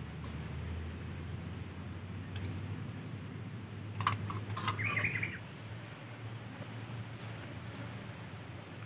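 Steady, high-pitched drone of insects with a low background hum. About four to five seconds in come a few sharp clicks and a short chirp.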